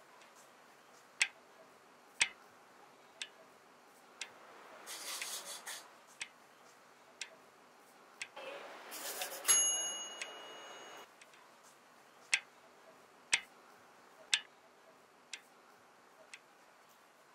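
Wall clock ticking about once a second. Two swells of rushing noise rise and fade about five and nine seconds in; the second is louder and carries a thin high tone.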